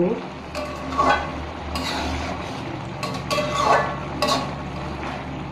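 A metal spatula stirring a thick small-fish curry in a metal karai, with several irregular scrapes against the pan. A steady low hum runs underneath.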